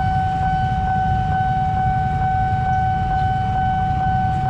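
Railway level-crossing warning alarm sounding with the barrier down: a steady high electronic tone that pulses about twice a second, signalling an approaching train, over a low rumble.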